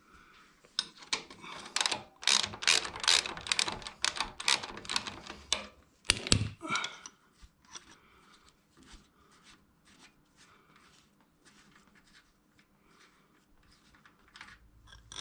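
Socket ratchet clicking in quick strokes as a suspension linkage bolt is worked loose, then fainter ticking clicks for the second half.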